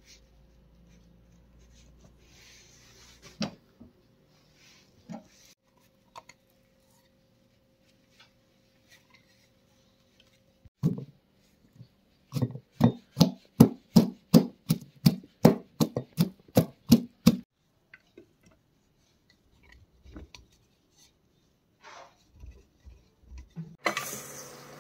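A pestle pounding garlic in a wooden mortar. A few scattered knocks come first, then a steady run of about fifteen thuds over five seconds, roughly three a second.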